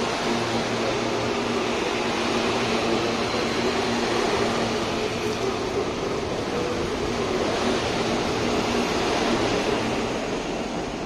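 CPTM electric commuter train moving along the platform: a steady electric hum from its motors and blowers over rolling noise, easing slightly near the end.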